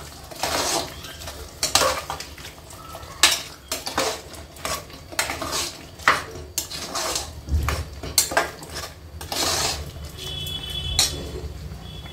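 Steel slotted spoon stirring mutton and tomatoes frying in an aluminium pressure cooker: irregular scrapes and knocks of metal on the pot's sides and base.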